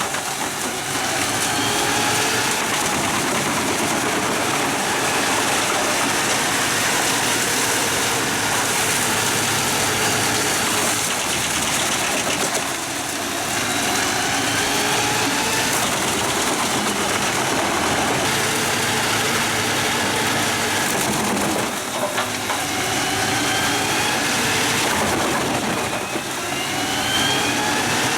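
Pezzolato PTH 1400/1000 drum wood chipper, driven by a 730 hp Scania truck engine, running loud and steady with a dense rushing noise. The engine's pitch rises several times, near the start, midway and twice near the end.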